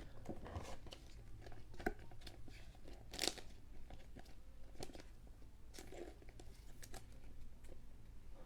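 Trading cards being handled and slipped into plastic sleeves: scattered faint rustles, crinkles and small clicks, the loudest about three seconds in.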